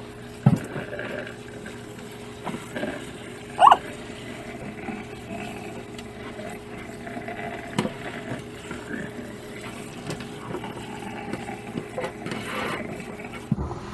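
Water from a kitchen sink's pull-out sprayer running through dreadlocks and splashing into a metal sink, with a few small knocks and one brief high squeak about four seconds in.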